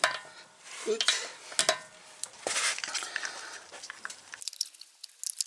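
Metallic clinks and scrapes of a steel cross-shaped lug wrench working on the wheel bolts as the wheel is tightened, several sharp clicks with a short metallic ring. About four seconds in the sound changes abruptly to sparser, fainter clicks.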